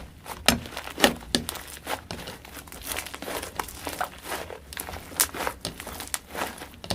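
Slime being squeezed and pressed by hand, giving a run of irregular crackling pops and clicks, the loudest near the start.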